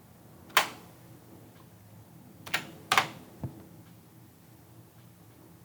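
Four sharp computer keyboard keystrokes spread over about three seconds, the last one softer and duller, over a faint steady low hum.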